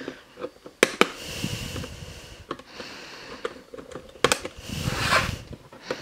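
Small side cutters snipping the ties that hold a plastic model horse in its box, a string of sharp clicks, with soft rustling of the cardboard and plastic packaging in between.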